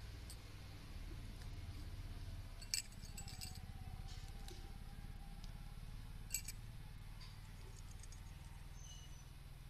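Low steady rumble of wind and handling on a phone microphone as coriander is picked by hand, with two sharp clicks, about three seconds and about six seconds in.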